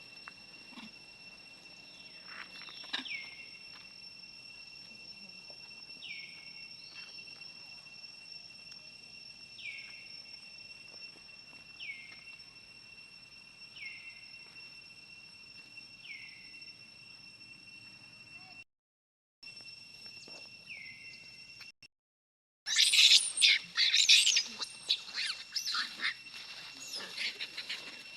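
A bird repeating one short falling call about every two seconds over a steady high drone. Near the end, loud harsh monkey shrieks and squeals break in.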